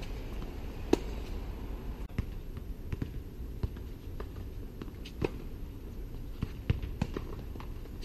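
Tennis rally: sharp knocks of a tennis ball struck by racquets and bouncing on a hard court, at irregular intervals, the loudest about a second in, over a steady low background noise.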